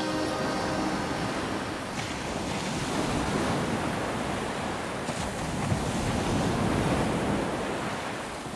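Sea surf washing onto a sandy beach, a steady rushing noise, with wind on the microphone.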